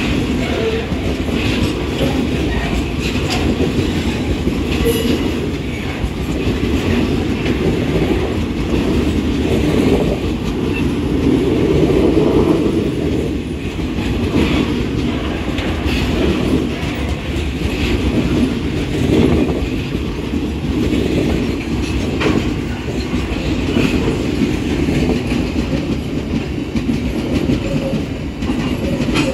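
Broad-gauge freight tank wagons rolling past close by: a steady rumble of wheels on rail, with scattered short clanks and clicks as the wheels cross the rail joints.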